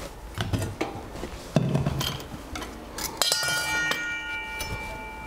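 A knife knocking on a chopping board as the ends are cut off a raw beetroot, a few separate knocks. About three seconds in, a piece of metal kitchenware is struck and rings on for about two seconds with several clear tones.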